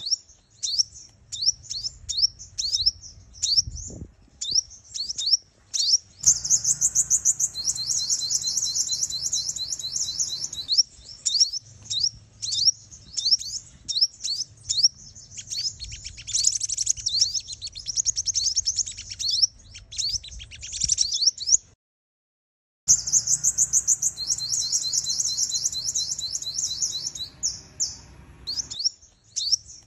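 Female sunbird calls: quick, high chirps and fast twittering trills, repeated as a loop used to lure and excite male sunbirds, with a break of about a second of silence partway through before the calls start again.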